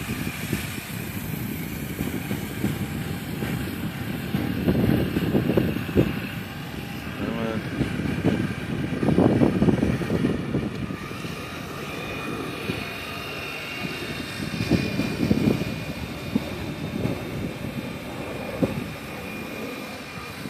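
Gusty wind buffeting the microphone, swelling and falling in uneven surges, with a faint steady high whine underneath.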